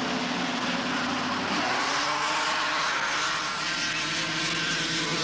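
Racing snowmobiles' two-stroke engines running at high revs, the pitch climbing from about a second and a half in as the sleds accelerate.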